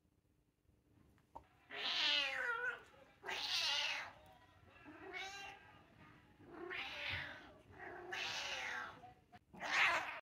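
Domestic cat meowing repeatedly: about six drawn-out meows, each under a second long and a second or so apart, with the last cut off abruptly.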